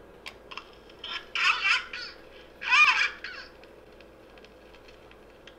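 Plush lucky cat toy making two short, high-pitched squeaky voice sounds about a second apart, the second wavering up and down in pitch, after a few light clicks of handling.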